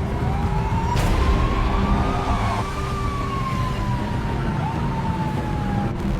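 Police siren wailing in one slow rise and fall, over a low rumble, with a sharp click about a second in.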